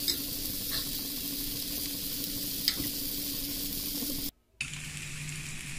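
Shrimp spaghetti sizzling in an oiled stainless steel pan as it is tossed with tongs, with a couple of faint clicks of the tongs. The sound cuts out for a moment about four seconds in, then the sizzle carries on over a low steady hum.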